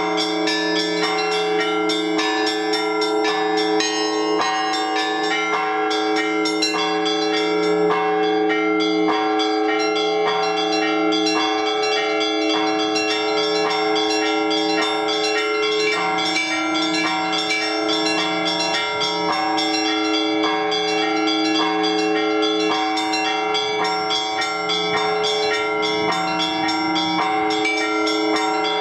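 Orthodox church bells rung together in a continuous peal for the liturgy: frequent quick strokes on the smaller, higher bells over the long-sounding hum of the larger bells.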